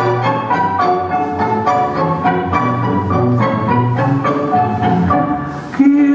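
Tango vals music, a quick succession of short pitched notes over a low accompaniment; just before the end it gets louder and a long held note comes in.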